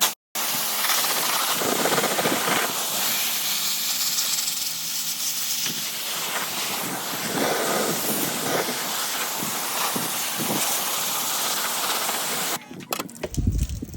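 High-pressure water spray hissing steadily as it washes an air conditioner, cutting off suddenly near the end.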